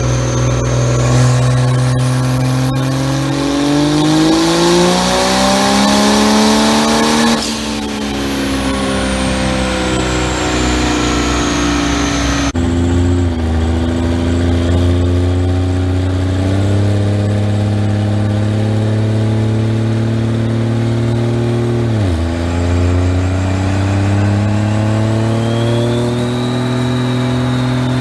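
Turbocharged Dodge Ram diesel pickups at full throttle on a chassis dyno. The engine climbs through the revs for about five seconds with a rising turbo whistle, then drops off sharply. After a cut, a second truck holds high revs on the rollers, dips briefly near the end and pulls again.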